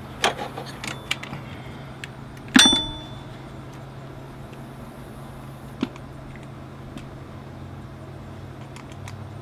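Metal clicks and clunks as a power steering pump is handled and worked into place in a car's engine bay. One loud, ringing metallic clank comes about two and a half seconds in, and a single knock follows a few seconds later.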